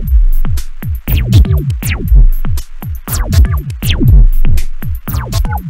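Electronic music from synths and a groovebox: a drum-machine beat over a deep bass, with pitched synth notes repeatedly sliding down in pitch and a fast ticking hi-hat pattern.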